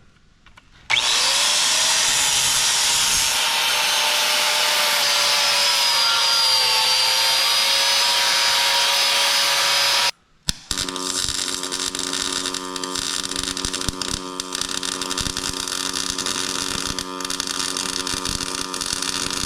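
A power grinder spins up and grinds paint off steel for about nine seconds, its whine wavering under load. Then the sound changes abruptly to a pulsed MIG welder running a bead, a steady buzz with crackle.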